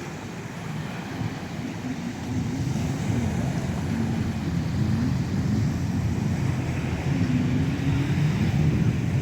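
A watercraft engine running offshore, its pitch wavering up and down and growing louder in the second half, over wind on the microphone and surf.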